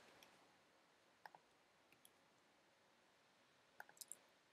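Near silence broken by a few faint computer keyboard clicks as numbers are typed: a pair about a second in, one more a little later, and a short cluster near the end.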